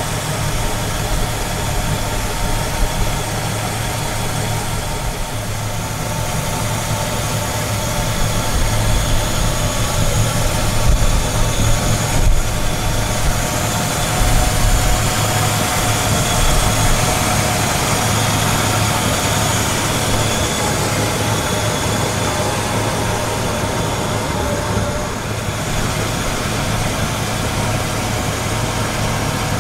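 The 1959 Chevrolet Biscayne's original 283 two-barrel V8 idling steadily.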